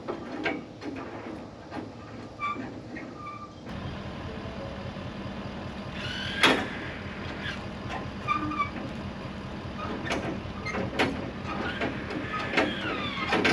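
Trailer hitch being worked, with sharp metal clanks and knocks, the loudest about six seconds in. A truck engine starts running steadily a few seconds in.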